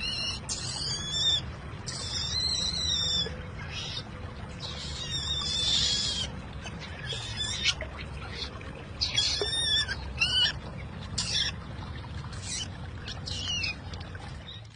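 Bird giving repeated short, high-pitched calls with bending pitch, in bursts over a low background rumble; the sound cuts off abruptly at the end.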